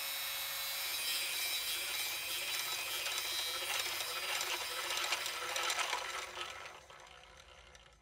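Saw blades cutting, heard as a dense, steady sawing noise that fades down about seven seconds in.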